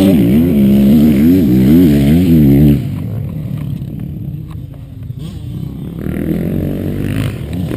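Motocross bike engine revving up and down in quick waves, then dropping away about three seconds in. An engine rises again near the end.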